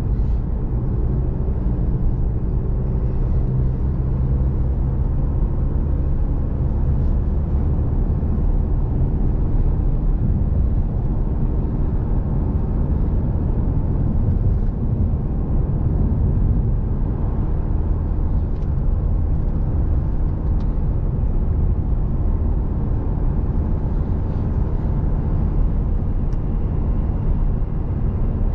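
Steady low drone of a diesel vehicle's engine and tyres on the road, heard from inside the cab while driving.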